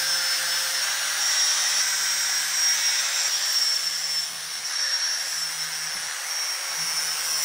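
Small electric angle grinder running with its disc against the cut end of a steel handlebar tube, grinding a chamfer onto it: a steady high whine with grinding hiss, lightening briefly a little over four seconds in.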